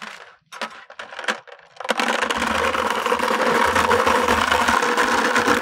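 A metal chain streaming out of a bucket in a continuous dense rattle, drawn up over the rim by its own momentum in a chain-fountain demonstration. A few light clinks come first, and the rattle starts about two seconds in.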